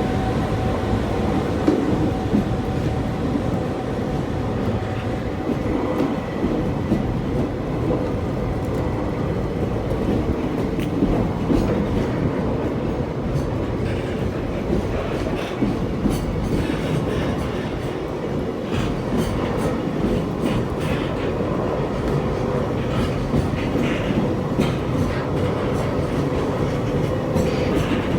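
Freight train passing close by, its container wagons rattling and clacking over the rail joints in a steady, continuous run. Sharp wheel clicks come thicker in the second half.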